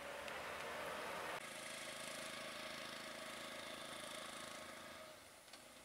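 A vehicle engine idling steadily. The sound changes abruptly about a second and a half in and drops lower near the end.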